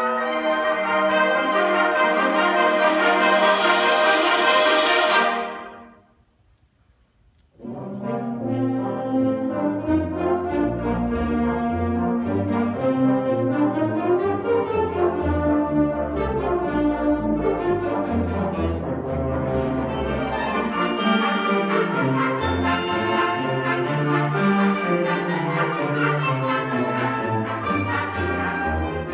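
Wind ensemble playing: a loud held brass chord cuts off about five seconds in, leaving a moment of near silence, then the full band comes back in with a deep bass line under moving brass and woodwind parts.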